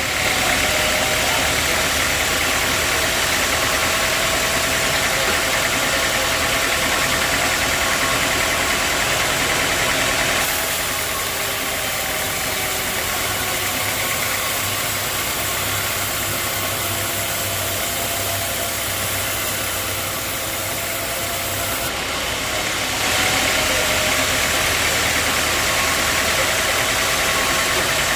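Sawmill machinery running steadily. It is louder for roughly the first ten seconds, eases off, then grows louder again for the last few seconds.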